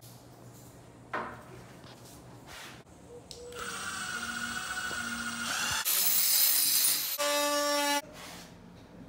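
Cordless power driver driving a screw into a door frame, running in bursts: a steady whine, then a harsher, noisier stretch, then a short whine near the end.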